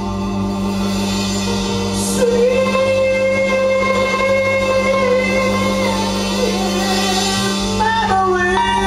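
Live band playing a slow soul number, a lead melody holding long notes over electric guitar, bass and drums.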